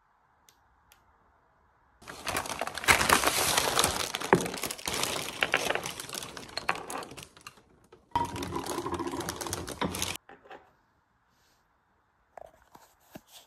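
Crinkling and rustling of plastic mailer bags and packing material being opened, in two spells, the first longer, then a few light taps near the end.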